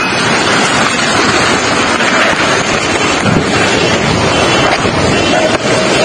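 Violent storm wind gusting with heavy rain and hail lashing down, a loud steady rush with wind buffeting the microphone.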